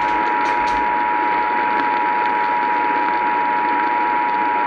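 Emergency Alert System attention signal: a two-tone alarm held steady over a hiss of radio static, announcing a tornado warning.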